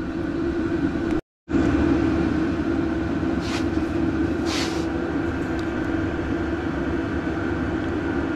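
A steady mechanical background hum, broken by a moment of dead silence about a second in where the recording stops and restarts, with two brief faint hisses near the middle.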